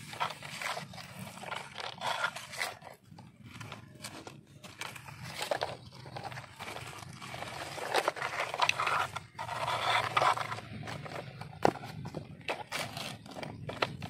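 Plastic toy front loader pushed through wet dirt: its bucket and wheels scrape and crunch through the soil in irregular strokes, with scattered clicks of plastic on grit.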